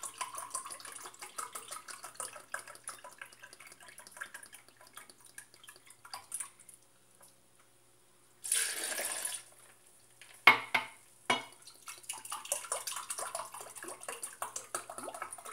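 Grape juice glugging out of a glass bottle into a drinking glass, then a short loud rush as the glassful is poured over ice in a blender jar. Two sharp knocks follow as the glass is set down on the stone counter, and the juice glugs into the glass again.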